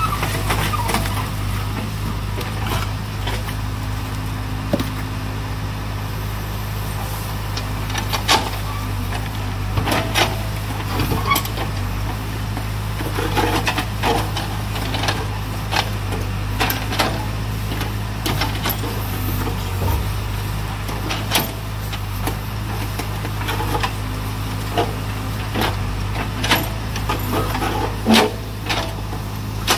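Backhoe loader's diesel engine running steadily, with scattered knocks and clatter throughout.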